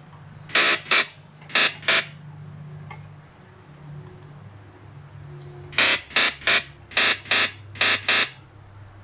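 Synthesized electric-shock zap sound effect from Ableton Live's Operator synth being played back as short, sharp bursts: four in two pairs at the start, then seven more in quick succession from about six seconds in.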